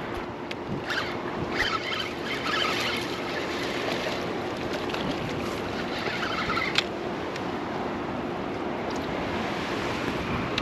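Wind rushing over the microphone with the wash of open water below, a steady noisy rush with a faint steady hum under it and a few brief scratchy bursts.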